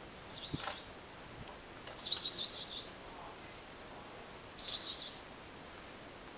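A small bird chirping: three short, high-pitched, rapidly warbling phrases about two seconds apart.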